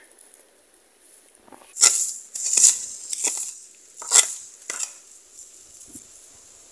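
Machete blade chopping into harvested cassava roots with about five sharp strikes, then a few lighter knocks.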